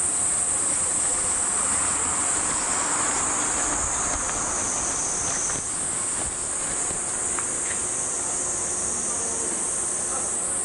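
A chorus of cicadas gives a steady, high-pitched, continuous buzz.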